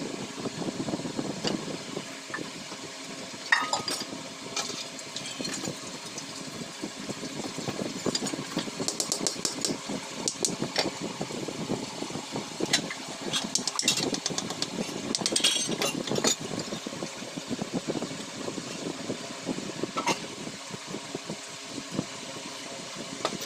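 A steady mechanical hum runs under clicks, taps and scraping as wooden pieces and tools are handled on a tabletop. There is a sharp knock about three and a half seconds in, and bursts of quick ticking and scraping in the middle.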